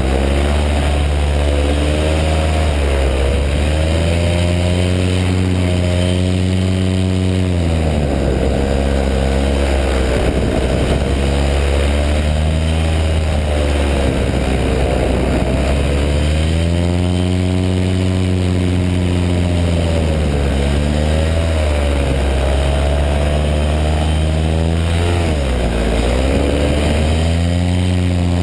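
Powered paraglider's paramotor engine and propeller running steadily loud, the engine note dropping and climbing back about five times as the throttle is eased off and opened again.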